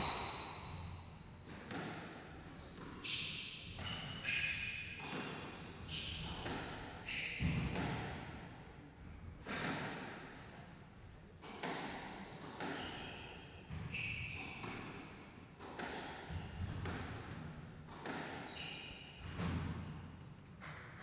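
Squash rally: the ball cracking off rackets and the court walls about once a second, with sneakers squeaking on the wooden court floor between the shots.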